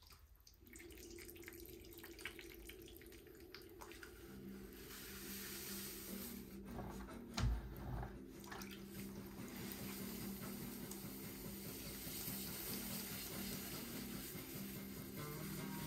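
Water running and splashing, as from a tap, over a low steady hum, with one thump about seven and a half seconds in.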